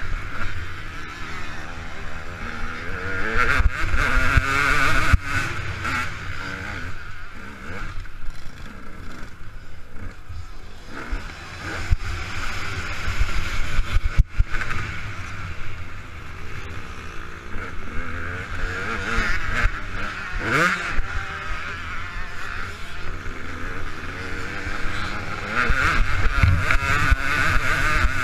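KTM 200 EXC two-stroke single-cylinder dirt bike engine revving hard and backing off over and over as it is ridden round a motocross track, with a sharp rise in revs about two-thirds of the way through. Heavy wind and bump rumble from the helmet-mounted camera sits under the engine.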